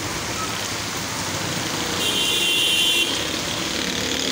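Heavy rain hissing steadily on a street while an auto-rickshaw drives past on the wet road. About two seconds in, a high steady tone sounds for about a second and cuts off suddenly.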